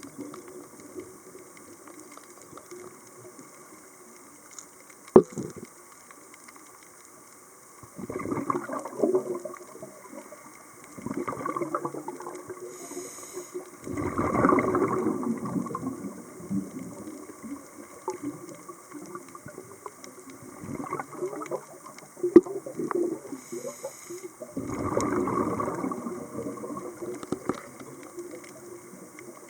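Scuba diver's exhaled air bubbling out of the regulator, heard underwater, in five gushes a few seconds apart with a faint steady hum between them. Two sharp clicks stand out, one about five seconds in and one near the end.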